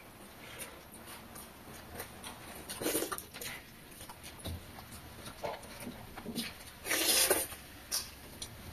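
Eating by hand: soft chewing and mouth noises, fingers squishing through watery rice and fish curry, and light clicks on steel bowls, with a louder rushing sound about seven seconds in.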